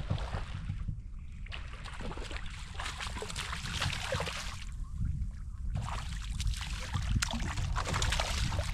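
A hooked fish thrashing and splashing at the water's surface in three spells, with a steady low rumble underneath.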